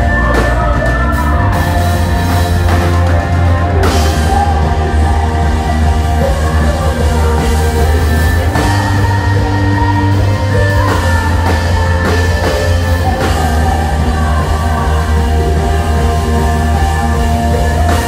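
Live band music played loud on stage: electric guitar over heavy bass and drums, in a rock style, with a melody line gliding above.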